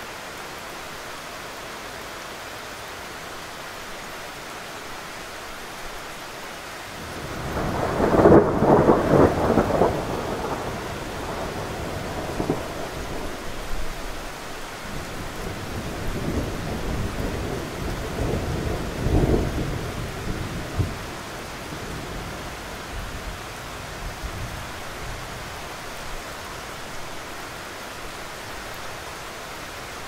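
Steady rain hiss, with a roll of thunder that builds about seven seconds in, is loudest just after, then rumbles on in weaker waves for about ten more seconds before fading back into the rain.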